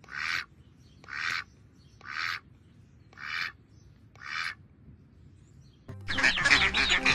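A duck quacking, five single quacks about a second apart. Near the end, a louder, busier sound comes in, which the tags take for music.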